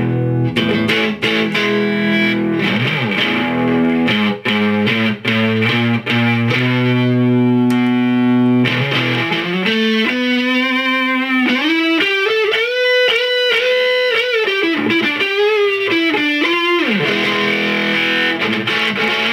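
Electric guitar played through a homemade Supermosfet distortion pedal: distorted chords with a few short stops and a long held chord, then a single-note lead line with string bends and vibrato, then chords again near the end.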